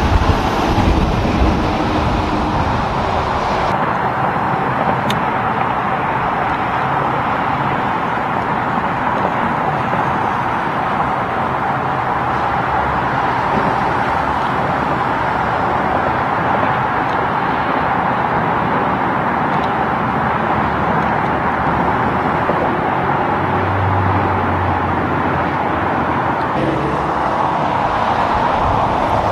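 Highway traffic passing, garbage trucks among it: a steady rush of tyres and engines. The sound changes abruptly a few seconds in and again near the end.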